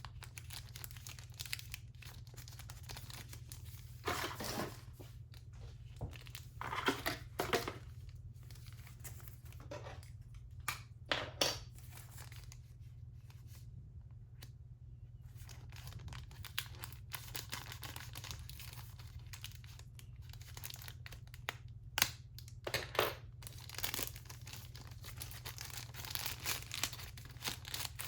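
Packaging being handled: irregular bursts of crinkling and tearing of paper or plastic wrap, with scattered small clicks, over a steady low hum.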